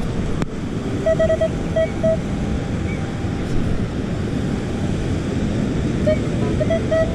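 Minelab Equinox metal detector giving short, clipped, mid-pitched target beeps, a quick run of them about a second in and again near the end, over steady wind and surf noise. The beeps over the freshly scooped hole show the target is still in the sand, missed by the scoop.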